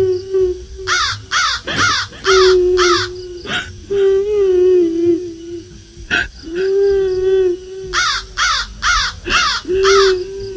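A woman's drawn-out, wavering wailing cry, a kuntilanak ghost-crying sound effect. It is broken twice by a run of about five short, sharp high calls in quick succession.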